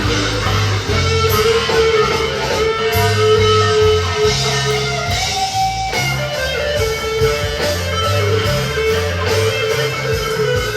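Electric guitar, a Squier Stratocaster through a Big Muff fuzz pedal and reverb into a small Fender Champion amp, playing a slow lead with long sustained notes and a bend upward about halfway through, over repeating low notes.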